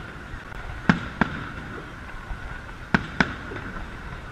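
Aerial fireworks shells bursting overhead: two pairs of sharp bangs, one pair about a second in and another about three seconds in, the two bangs of each pair about a third of a second apart.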